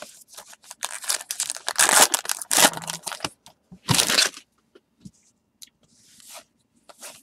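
A pack of baseball cards being torn open, the wrapper tearing and crinkling in irregular bursts, loudest over a couple of seconds and again once about four seconds in.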